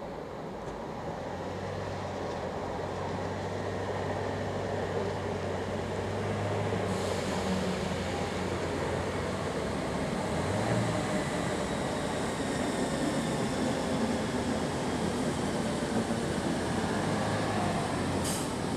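Electric multiple unit passenger train drawing slowly into the platform, its rumble growing louder, with a steady low hum and a faint falling whine as it slows. A short hiss sounds near the end.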